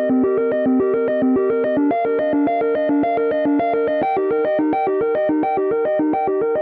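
iPhone ringtone: a synthesized melody of short, evenly spaced keyboard-like notes, about eight a second, cycling through a repeating pattern.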